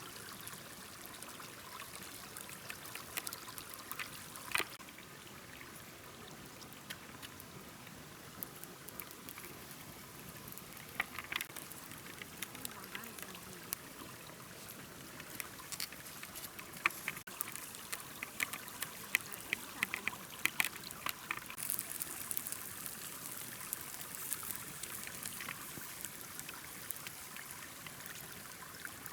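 Water trickling steadily, with scattered light clicks and knocks.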